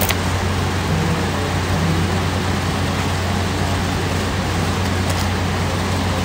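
Steady, loud background noise with a constant low hum and no speech, with a brief click right at the start.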